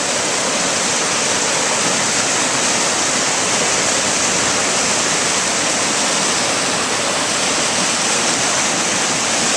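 Floodwater of a swollen creek rushing and churning over rapids, a loud, steady wash of noise. The creek is in flood, running 4 to 5 feet above its usual level.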